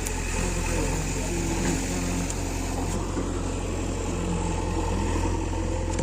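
Heavy diesel machinery engine running steadily with a deep, even hum.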